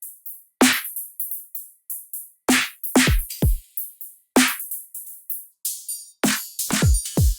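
Electronic drum-machine pattern: deep kick drums that drop in pitch on each hit, played in an uneven rhythm with short high ticks between them. Three kicks come in quick succession near the end.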